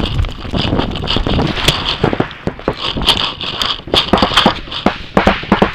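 Paintball markers firing in irregular, rapid sharp pops during play, with the rustle and knock of the barrel-mounted camera being carried at a run.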